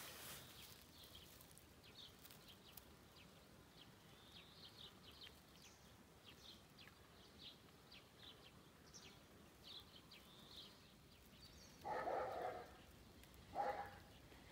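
A tiny kitten mewing twice near the end: a longer mew, then a short one. Faint high chirping runs throughout.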